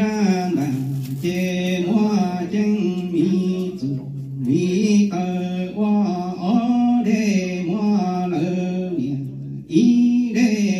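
A man chanting Hmong txiv xaiv, a traditional chanted song, into a handheld microphone. A single voice holds long notes and slides between a few pitches, with a short break near the end.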